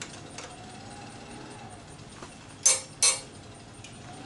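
A wrench clinking on a carburetor fuel-line fitting as it is snugged up by hand: a few light ticks, then two sharp clinks about a third of a second apart near the end.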